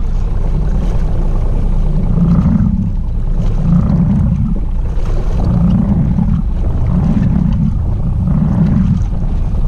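Small outboard boat under way, with wind buffeting the microphone: a loud low rumble that swells about every one and a half seconds.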